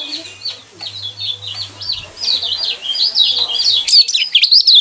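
Kecial kuning (lemon-bellied white-eye) singing a fast, unbroken chattering song of short, high sweeping notes, the kind played as a 'masteran' to goad other white-eyes into song. The song grows louder and denser toward the end, while a low hum under it stops near the end.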